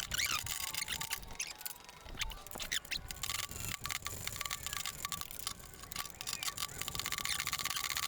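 Faint, irregular clicks and light scrapes of hand tools, with a few faint squeaks.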